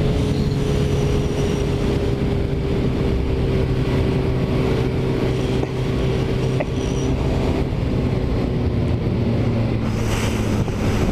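Motorcycle engine running at a steady cruising speed, with wind and road noise rushing past. The engine note holds level and eases slightly lower near the end.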